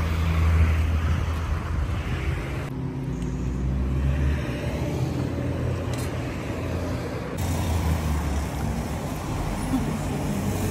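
Roadside ambience: a steady low rumble of road traffic, changing abruptly about three and about seven seconds in.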